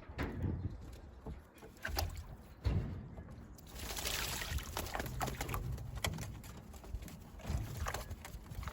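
Racing pigeons splashing in a shallow water bath: irregular splashes, with a longer spell of splashing about four seconds in.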